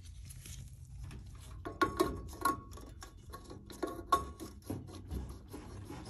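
Scattered light metallic clicks and taps from parts and wiring being handled inside a microwave's sheet-metal cabinet, a few of them ringing briefly, over a low steady hum.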